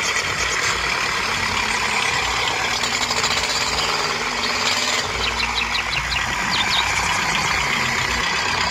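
A motor running steadily, sounding like an engine, with a few light ticks past the middle.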